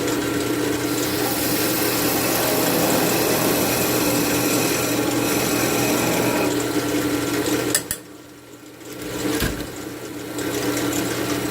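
Wood lathe running steadily with a tool working the spinning cherry wood, giving a rough scraping hiss over the motor hum. About eight seconds in the tool comes off with a click, leaving only the quieter motor hum, and it goes back into the wood about two seconds later.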